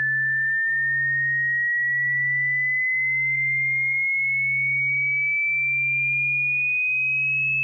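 Electronic cat-repellent tone: a steady pure tone gliding slowly upward in pitch. Under it runs a low hum broken by short gaps about once a second.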